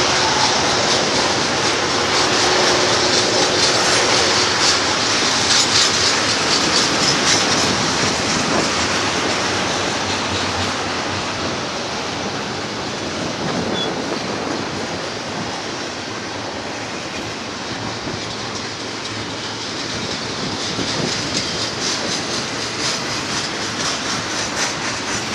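Double-stack intermodal container train rolling past close by: a steady rumble of steel wheels on rail with fast clicking. It dips slightly in the middle and rises again near the end.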